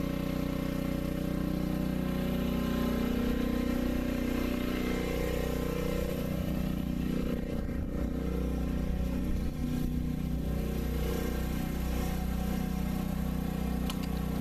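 Large engine running steadily at idle: a low, even hum with many overtones.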